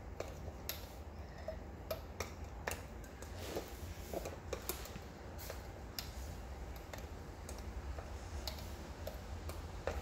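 Small, irregular clicks and ticks of rubber loom bands and fingers on the plastic pegs of a bracelet loom as the bands are pushed down and looped over, over a faint low hum.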